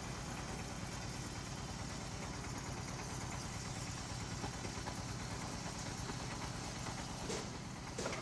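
Floating fish-feed pellet extruder machine running steadily: a continuous low hum with a fast, even pulse. A couple of short sharp clicks come near the end.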